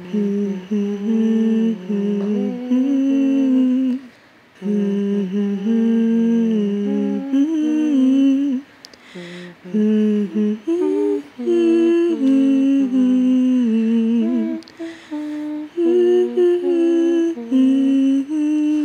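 A person humming a slow tune with long held notes, pausing briefly between phrases.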